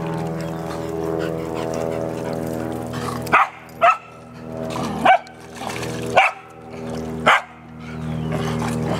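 A dog barking five times in sharp single barks, roughly a second apart, starting about a third of the way in, over a steady droning hum.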